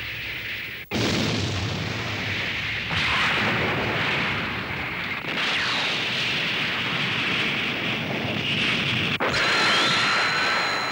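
Animated sound effects of explosions: a loud, continuous rumbling roar, broken by sudden cuts about a second in and near the end, with a few steady high tones coming in at the close.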